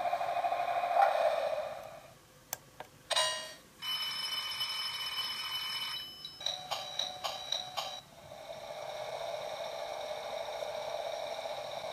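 Electronic tones from a sound-equipped model train controller's built-in speaker as its buttons are pressed: a steady hum fades out, a couple of clicks and a short tone follow, then a steady chord of tones for about two seconds and a quick run of beeps, after which the steady hum returns.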